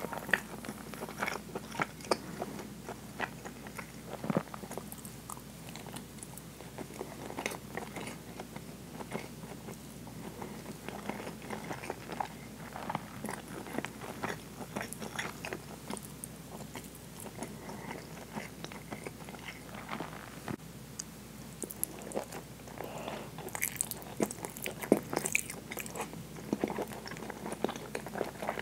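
Close-miked chewing and mouth sounds of someone eating soy-braised pork and rice, with many small irregular clicks. The clicks come thicker and louder near the end.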